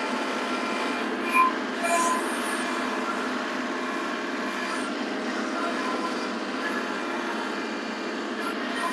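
Kubota compact tractor's diesel engine running steadily as the tractor manoeuvres and turns with a grading scraper on the back, heard from a distance. Two short louder sounds stand out about one and a half and two seconds in.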